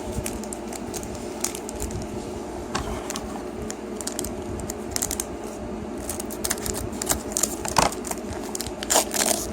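Foil Pokémon booster pack being torn open and its cards handled: irregular small crinkles, ticks and rustles, with a couple of louder snaps near the end.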